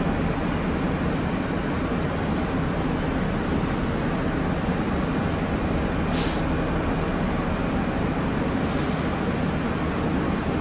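New York City subway train rumbling steadily, with a faint steady high whine. Two short hisses of air come about six and nine seconds in.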